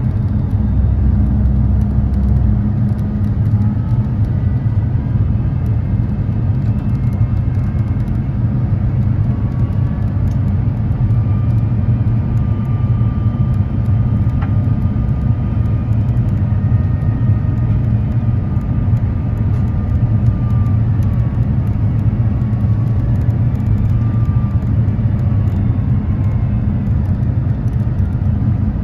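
Airbus A350-900 cabin noise from a seat beside the Rolls-Royce Trent XWB engine: a steady low rumble of engines and airflow, with faint whining tones drifting slowly up and down in pitch.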